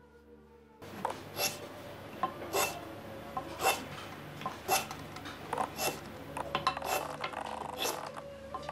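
Small hand plane shaving a thin wooden arrow shaft held in a grooved board, starting about a second in: repeated scraping strokes, roughly one a second, each ending in a sharp rasp.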